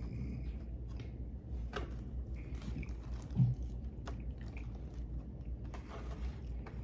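A person chewing soft, juicy food (strawberries), with wet squishy mouth sounds and scattered small clicks and smacks. There is a soft thump about halfway through.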